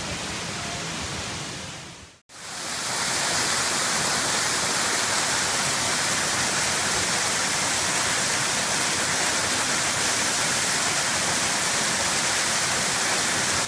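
Rushing water of a waterfall pouring over rock into a gorge, a steady hiss-like roar. It drops out briefly about two seconds in and comes back louder.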